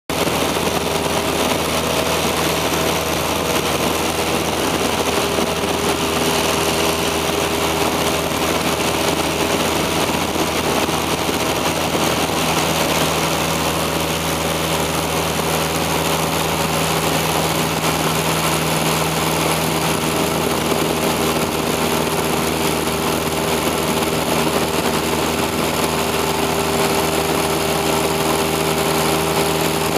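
Small high-wing plane's engine and propeller droning steadily in cruise, heard inside the cabin along with the rush of the airflow. A low hum tone grows a little stronger about halfway through.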